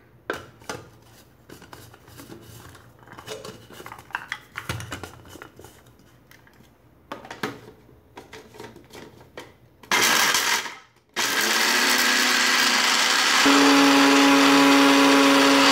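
Plastic clicks and knocks as a personal blender's cup and blade lid are fitted and set on the base, then the small blender motor starts in a short burst about ten seconds in and, after a brief stop, runs continuously, grinding candlenuts fine. A steady hum comes through more clearly near the end.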